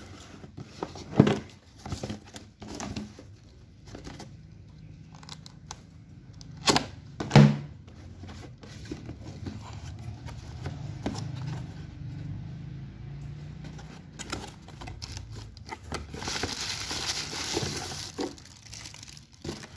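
A cardboard product box being opened by hand: flaps and lid handled, with a few sharp knocks and taps. Near the end, a plastic bag rustles and crinkles.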